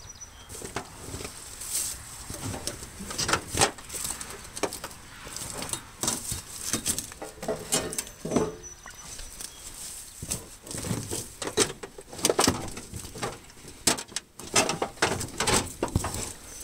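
Footsteps rustling through tall wet grass, with irregular knocks and clicks of handling and a light patter of rain.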